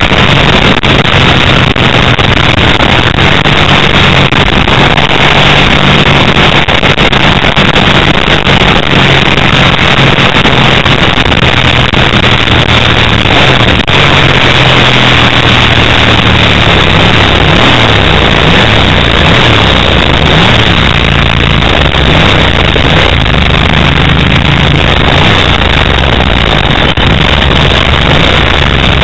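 Ducati 888's 90-degree V-twin engine running loud under heavy wind noise on the onboard microphone. In the second half the engine note wavers and drops as the bike slows.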